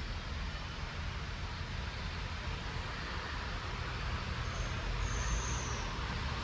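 Steady background rumble and hiss of a working shop, like distant traffic or running machinery, with no distinct tool or part sounds. There are a few faint high whistles about five seconds in.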